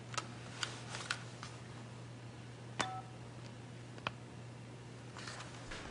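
Faint clicks from a cordless phone handset as the call is ended, one of them about halfway through with a short electronic beep, over a low steady hum.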